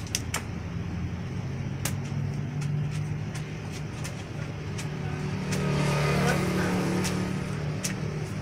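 Steady hum of motor-vehicle engines from street traffic, swelling as a vehicle passes about six seconds in, with scattered light clicks.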